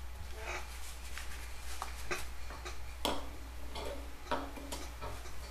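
Scattered soft rustles and small clicks of hands at work: cloth-and-leather work gloves being pulled on and a short PVC pipe touched on the tabletop, with a low steady hum underneath.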